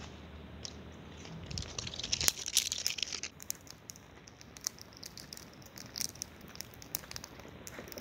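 Small campfire of thin dry sticks crackling as it burns. A dense run of crackling and rustling comes about one and a half to three seconds in, then scattered sharp pops.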